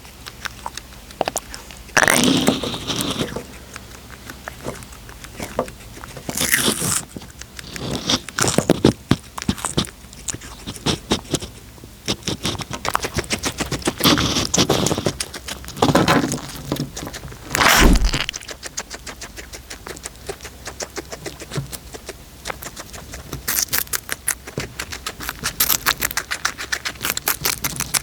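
A cat eating, with rapid crunching and chewing clicks that come thick and fast near the end and are broken by a few louder scraping rustles.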